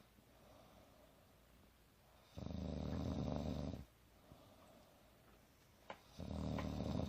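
Snoring: two long, low, buzzing snores about three and a half seconds apart, each lasting about a second and a half, with a short click just before the second.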